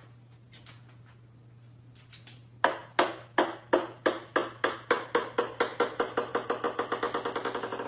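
A series of sharp, light taps that speed up from about three a second to about eight a second while growing quieter, over a steady low hum.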